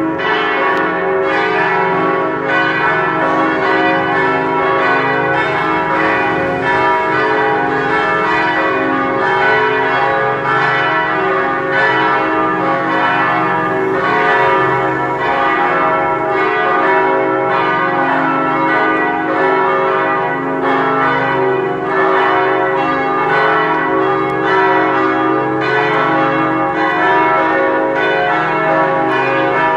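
Full peal of four swinging church bells tuned C-sharp, E, F-sharp and G-sharp, striking continuously in an overlapping, uneven jangle of ringing tones.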